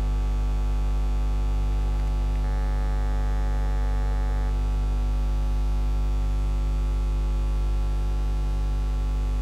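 Steady electrical mains hum with a buzz in the commentary audio feed, unchanging throughout, typical of a ground loop in the sound system.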